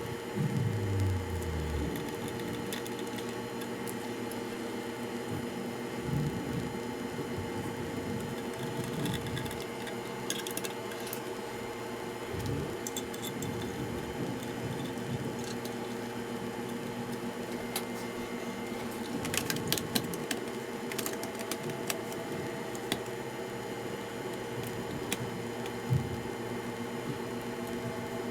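Steady electrical or mechanical hum made of several held tones, with scattered light clicks, a cluster about two-thirds of the way through, and a few soft low knocks.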